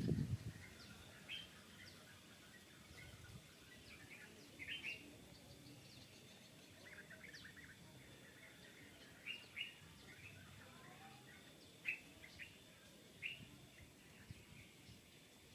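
Small birds chirping: scattered short, high chirps and tweets, a few louder ones standing out, over a faint steady background hiss.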